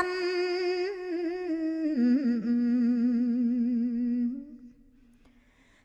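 Khmer smot chanting: a woman's voice holding one long, wavering note at the end of a phrase, stepping down in pitch about two seconds in and fading out after about four and a half seconds.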